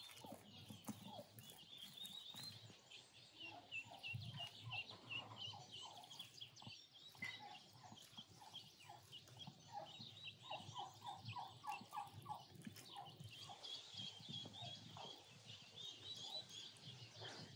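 Farmyard birdsong: small birds chirping throughout, and a rapid series of calls from a farmyard fowl, likely a turkey, around the middle. Soft, irregular handling sounds of wet clay being pressed and smoothed by gloved hands.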